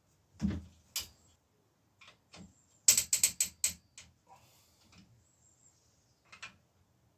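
Hand tools working on a bicycle's front end: a couple of knocks, then a quick run of five or six ratchet-like metal clicks about three seconds in, and a few softer clicks near the end.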